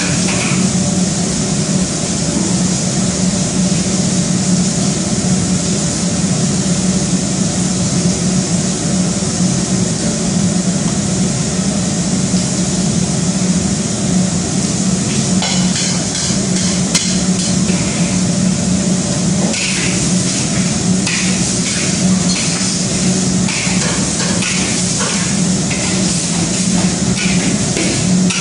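Kitchen cooking noise: a loud steady roar with a low hum and hiss. From about halfway through come quick, irregular clattering knocks of utensils.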